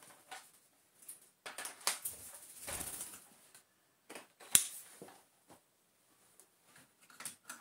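Plastic parts of a cordless stick vacuum being handled and fitted together: scattered knocks and rustling, with one sharp click about four and a half seconds in. The motor is not running.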